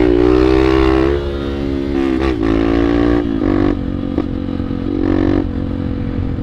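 Honda Bros 150's single-cylinder four-stroke engine revved hard and held high for about a second while the bike is up on its rear wheel in a wheelie, then dropping back. Three short throttle blips follow, about two, three and a half and five seconds in.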